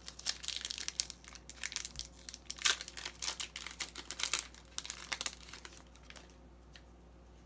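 A Pokémon TCG Shining Fates booster pack's foil wrapper crinkling as it is torn open and handled: a dense run of sharp crackles that dies away about six seconds in.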